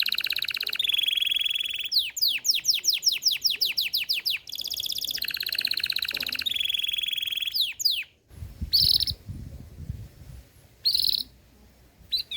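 Domestic canary (Belgian canary) singing: long rapid trilled rolls alternating with a run of quick descending whistled sweeps, about four a second. About eight seconds in the song breaks off, leaving a few short chirps over a low rumble.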